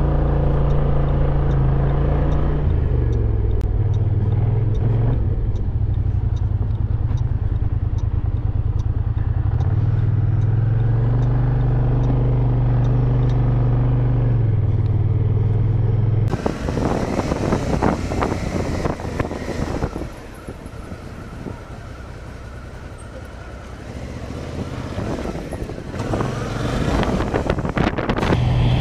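Motorcycle engine heard from the rider's position, running steadily and falling and rising in pitch as the bike slows and speeds up. About two-thirds of the way through it cuts abruptly to a rushing, buffeting noise with no clear engine note, and an engine note comes back at the very end.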